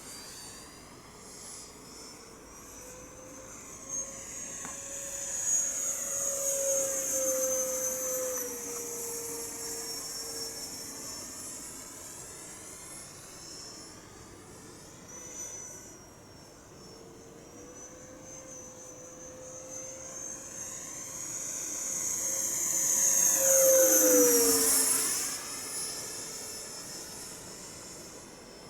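Radio-controlled F-4 model jet with an 80mm electric ducted fan flying passes: a high, jet-like whine that swells as the model comes near about five seconds in. It is loudest around 23 seconds in, where its pitch drops sharply as it flies past.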